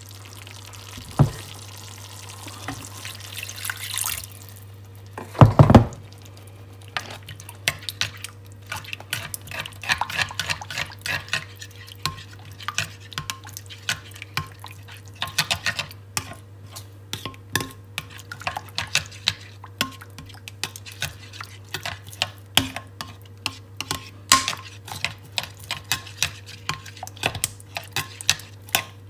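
Metal spoon stirring flour-thickened pan gravy in a glass roasting dish, with many quick clinks and scrapes of the spoon against the glass. A steady low hum runs underneath, and there is one louder knock about five and a half seconds in.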